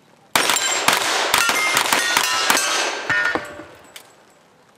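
Two revolvers firing rapidly side by side, shots overlapping, with steel plate targets ringing as they are hit. The shooting starts about a third of a second in, thins out after about three and a half seconds, and one last shot comes near four seconds.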